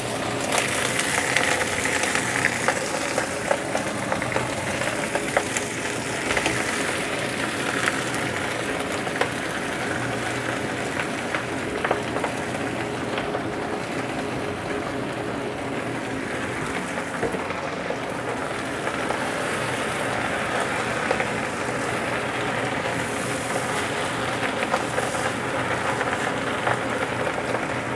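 Leafy greens sizzling and crackling as they stir-fry in a hot oiled nonstick wok, with small spatters popping throughout and a spatula turning the vegetables against the pan.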